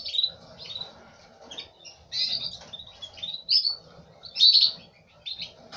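Domestic canaries chirping: short, high chirps in scattered bursts, the loudest about two, three and a half and four and a half seconds in.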